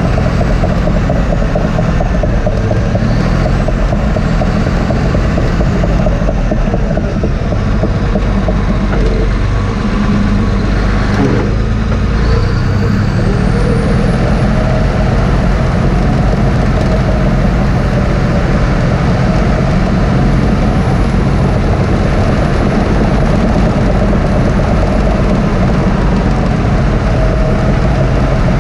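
Caterpillar D6T LGP bulldozer's six-cylinder diesel engine running steadily under load while the blade pushes soil, heard from inside the cab.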